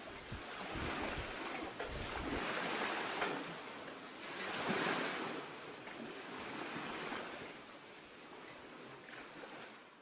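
Wind and water rushing past a small sailing yacht under way, swelling and fading every couple of seconds, with wind buffeting the microphone in the first two seconds or so.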